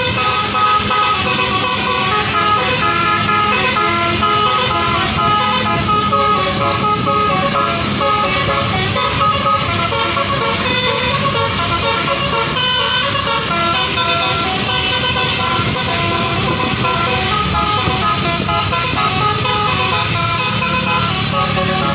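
Tour bus's Basuri multi-tone 'telolet' horn played continuously, several horn tones at once stepping quickly through melodies.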